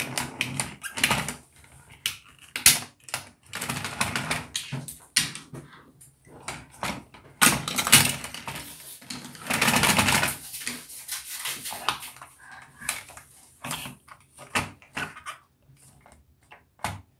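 Toy packaging being handled and pulled open: irregular clicks, knocks and rustles, with louder rustling stretches about eight and ten seconds in.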